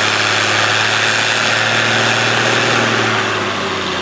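Massey Ferguson tractor's diesel engine running hard under load as it pulls the weight-transfer sled, a loud, steady drone that eases a little near the end.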